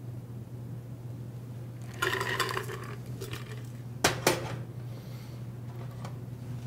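Copper cocktail shaker tins and strainer set down on the bar top: a ringing metallic clatter about two seconds in, then two sharp knocks about four seconds in. A steady low hum runs underneath.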